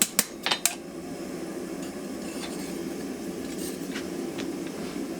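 A quick run of four light metallic clinks near the start, with a few fainter ticks later, as forging tools are set down on the anvil after hammering. A steady low hum runs underneath.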